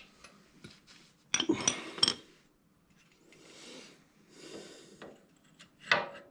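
Metal tools clinking and rattling, with a cluster of sharp clinks that ring briefly about a second and a half in, softer rustling after, and another clink near the end: sockets and a wrench being handled while bolting up a motorcycle's rear suspension linkage.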